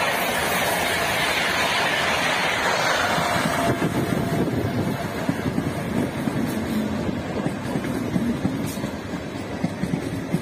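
Gatimaan Express coaches rushing past at high speed, a dense roar of wind and wheels. Nearly four seconds in it cuts abruptly to an electric local train rumbling past, lower in pitch, with scattered wheel clicks.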